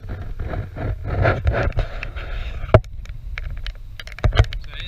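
Wind buffeting the camera's microphone with a steady low rumble, broken by a few sharp knocks near the end.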